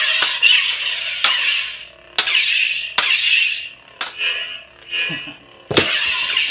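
Lightsaber sound effects from a stunt saber's sound board: six sharp clash sounds about a second apart, each a crackling buzz that fades within a second.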